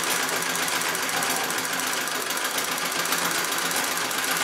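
Singer 66 treadle sewing machine running steadily at speed during free-motion quilting, a fast, even rhythm of stitches.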